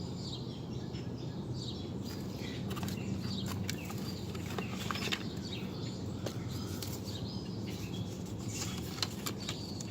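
Small birds chirping in short calls over a steady low hum, with a few light clicks.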